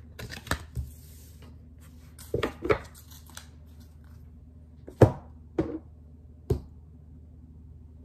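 Oracle cards and card decks being handled and set down on a wooden table: a brief sliding rustle, then a series of sharp taps and knocks, the loudest about five seconds in.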